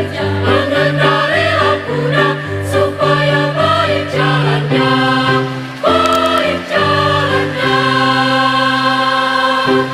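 Student choir singing a medley of Indonesian children's songs in harmony, over a keyboard accompaniment with a pulsing bass line. It closes on a long held chord that stops just before the end.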